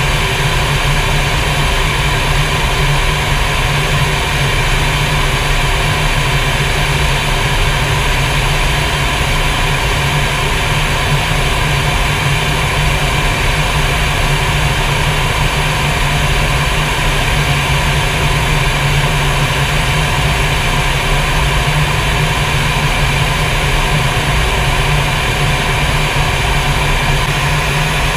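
Fighter jet cockpit noise in flight: a steady low engine and airflow drone with several constant whining tones above it, unchanging throughout.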